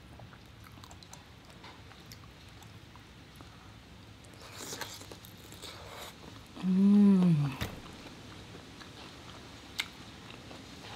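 A person chewing mouthfuls of lobster meat, with a single hummed "mmm" about seven seconds in. The hum is the loudest sound, lasts about a second and drops in pitch at the end. A sharp click follows near the end.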